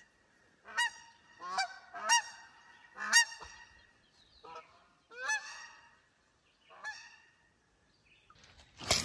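Geese flying overhead, honking about seven times in short calls, some in quick pairs. A sudden loud noise comes right at the end.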